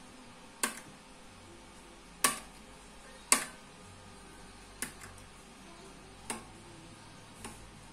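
Frequency-range push-button switches on a Kenwood AG-203 audio signal generator being pressed, giving six sharp clicks a second or so apart, the loudest three in the first half; the buttons still work normally.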